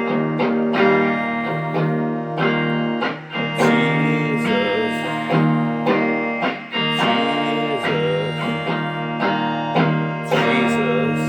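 Guitar-led instrumental music: plucked guitar chords struck about once a second, with a wavering melodic line over them.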